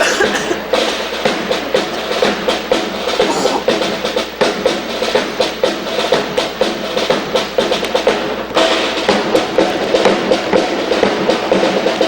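Rifle drill team handling rifles in unison: a fast, drum-like rhythm of wooden and metal clacks, slaps and stamps, with a fresh burst of strokes about eight and a half seconds in.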